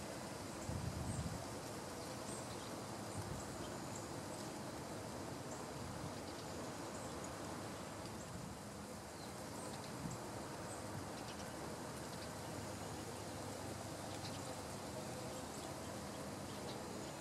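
Outdoor ambience: a steady hiss with faint, short high-pitched chip notes scattered irregularly throughout, typical of small birds. There is a brief low rumble about a second in.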